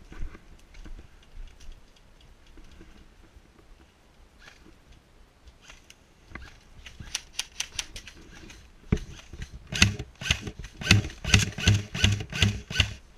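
Airsoft guns firing: scattered single shots, then from about seven seconds in a quickening string of sharp cracks, about three a second near the end.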